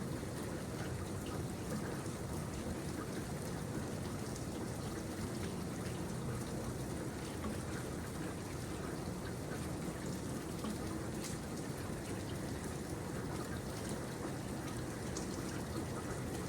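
Steady rainfall, an even hiss with scattered individual drops ticking on a surface.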